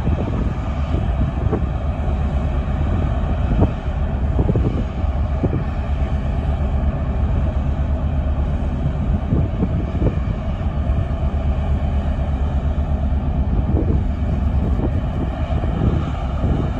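Large ro-ro car ferry's engines running with a low, steady drone as she pulls away from her berth.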